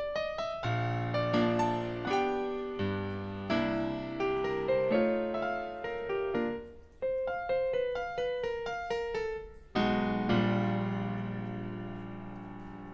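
Background piano music: struck notes and chords, a falling run of single notes, and a closing chord that rings and fades away.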